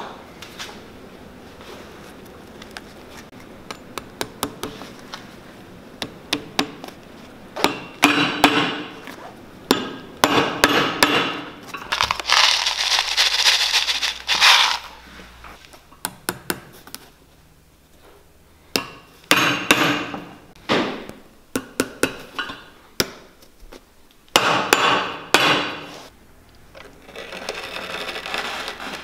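Bursts of sharp hammer taps, typical of tacking leather on a boot sole. Near the middle a dense rattle of small metal tacks tipped out of a cardboard box onto a wooden bench, and near the end a sole-cutting machine starts running steadily.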